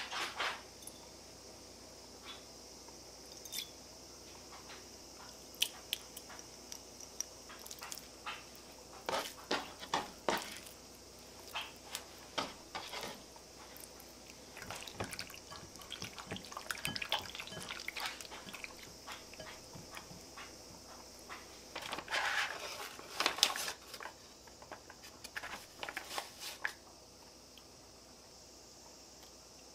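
Food preparation at glass mixing bowls: seasonings poured in, raw chicken pieces dropped in and handled, and a metal measuring spoon scooping rice flour. Scattered soft taps, clinks and handling noises, busier in the middle and about three-quarters through, over a faint steady high hiss.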